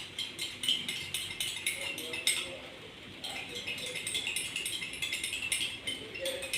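A metal spoon stirring liquid in a glass, clinking against the glass several times a second.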